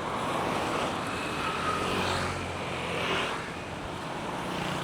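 A motor engine hums steadily from about a second in, over a constant noisy wash of surf and wind.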